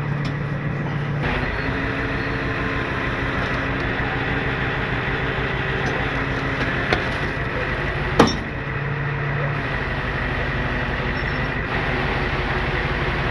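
Tow truck's engine running steadily, with a single sharp knock about eight seconds in.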